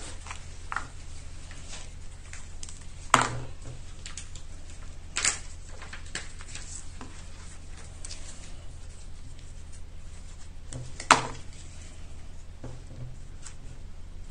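Paper-craft handling at a work table: a few sharp taps of small objects set down, the loudest about three and eleven seconds in, and a short scraping rasp about five seconds in, over a steady low hum.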